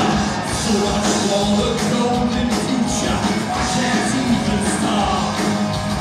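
Live heavy metal band playing: electric guitar, bass and drums with cymbals, and a singer singing and shouting into a microphone over them.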